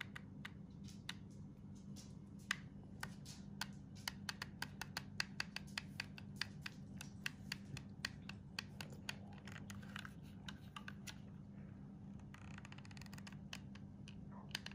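Hot glue gun's trigger feed clicking repeatedly as glue is pushed out onto an aluminium plate: a quick run of sharp clicks, several a second, stopping about eleven seconds in, over a steady low hum.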